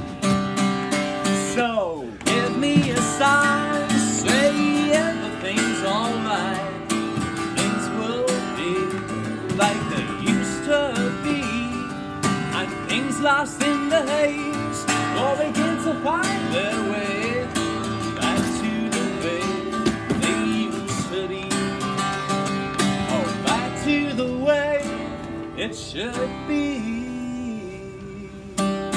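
Acoustic guitar strummed steadily with a man singing over it, a solo unplugged live performance of a song.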